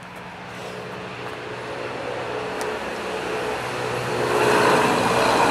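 Freshly rebuilt LT1 small-block V8 of a 1996 Chevrolet Impala SS idling, a steady hum that grows gradually louder.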